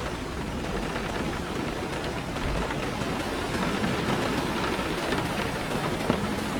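Steady rushing noise of stormy weather, like heavy rain, with a low rumble underneath.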